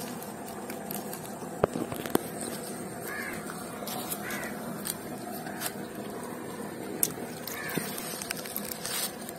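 A crow cawing, about three caws a few seconds apart, with a couple of sharp clicks about a second and a half in.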